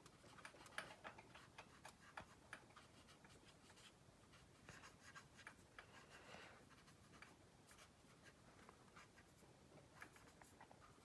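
Faint, irregular scratchy strokes of a cotton swab rubbing over the plastic surface of a scale model aircraft, blending oil-paint weathering into the panel lines.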